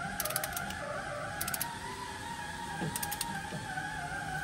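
Ratchet wrench clicking in three short bursts as head bolts are run down into a Detroit Diesel 6-71 cylinder head.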